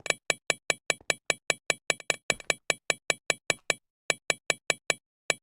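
A fast, even run of short, sharp percussive clicks with a ringing high tone, about five a second, pausing briefly twice in the second half.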